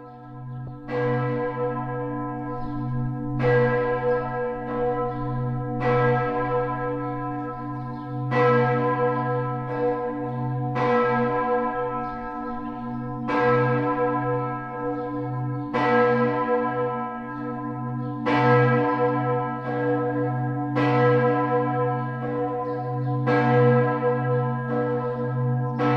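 Church bells ringing: evenly spaced strokes about every two and a half seconds, each fading over a deep hum that rings on throughout.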